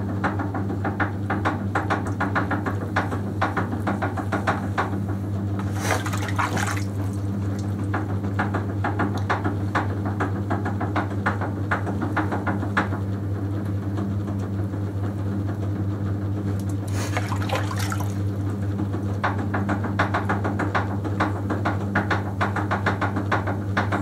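Wet clay squelching and swishing under a potter's hands on a spinning potter's wheel, over the wheel motor's steady low hum. Two louder wet swishes come about six and seventeen seconds in.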